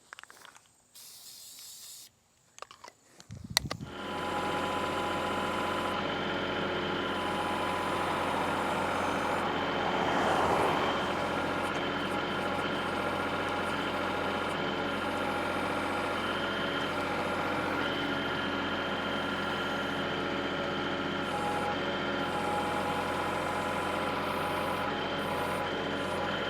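A short spray-paint hiss about a second in, then from about four seconds in the diesel engine of a Kubota L3301 compact tractor running the BH77 backhoe, steady, getting briefly louder around ten seconds in.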